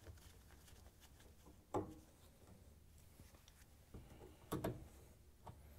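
Faint, brief sounds of a Phillips screwdriver turning out a dishwasher mounting screw from the underside of a wooden countertop, heard a few times: about two seconds in, then twice near four and a half seconds in.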